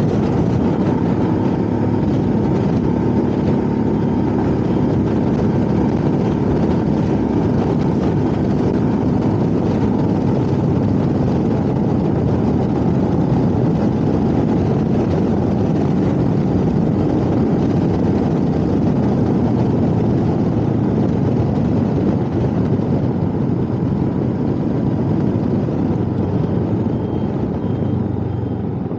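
Royal Enfield Himalayan motorcycle engine running steadily under way, with wind and road rush over it; it eases off a little near the end.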